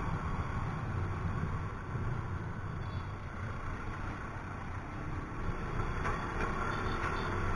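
Yamaha Mio i 125 scooter's small single-cylinder engine running while riding in traffic, heard from the moving bike as a steady low rumble mixed with road noise.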